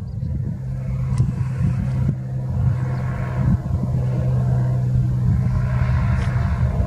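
Beechcraft Bonanza V35's six-cylinder piston engine and propeller giving a steady drone over a low rumble as the plane approaches on final to land, growing slightly louder.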